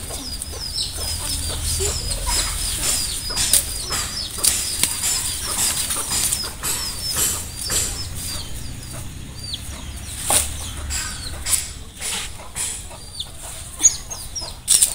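Chicks peeping, a steady run of short high chirps about two or three a second, over the rustle and snap of taro stalks and leaves being cut and handled, with a few sharp cracks in the second half.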